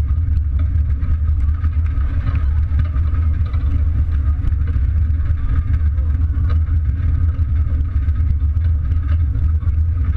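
Steady low rumble of a wheeled outhouse racer rolling slowly over asphalt, picked up by a camera riding on it, with faint crowd voices in the background.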